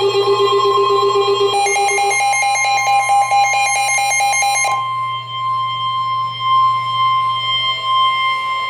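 Electronic emergency alert tones for a severe thunderstorm warning. Pulsing, fast-switching beeps in several pitches change pattern about a second and a half in, then give way to a single steady warning tone about halfway through.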